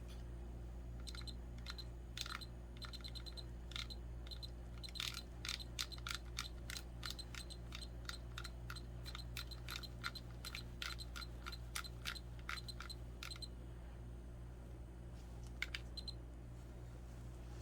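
Electronic pipette's buttons clicking with short high beeps, many in quick runs and then a couple more near the end, as its volume setting is stepped to 1 microliter. A steady low hum runs underneath.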